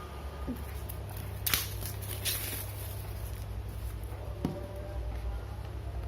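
Packaging of a new action-camera box being handled and pried open: a sharp crinkle about a second and a half in, a longer scraping rustle just after, and a few small clicks, over a steady low hum.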